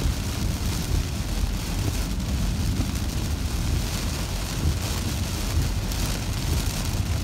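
Heavy rain falling on a moving car, heard from inside the cabin as a steady hiss over a low rumble of tyres on the wet road.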